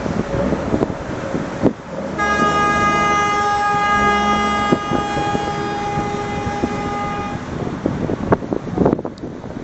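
A vehicle horn held in one long steady blast of about five seconds, starting about two seconds in, over a constant rushing noise with scattered knocks.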